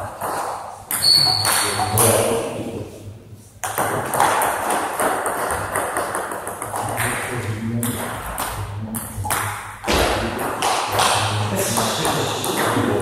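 Table tennis ball clicking sharply off bats and the table, in scattered single hits.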